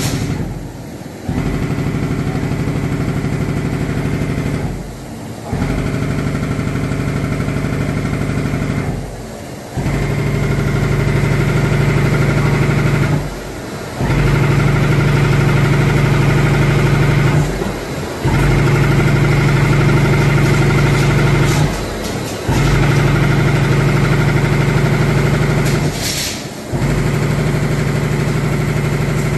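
CNC leather punching machine's punch head running, a rapid steady run of punch strokes through leather. It comes in stretches of about three to four seconds, with a short pause between each one as the head moves to the next hole pattern. A low steady hum carries on underneath.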